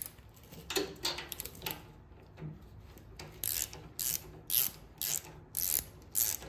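Socket ratchet clicking in short back-and-forth strokes, about two a second, as a spark plug is loosened from a small engine, after a few scattered clicks and knocks as the socket is fitted onto the plug.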